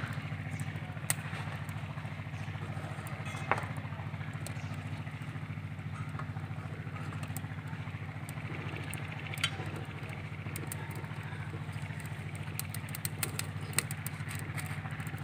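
Steady low hum of an engine running close by, with the light crackle of a wood fire. A few sharp clinks come from a steel ladle against a steel pot as tea is stirred and poured.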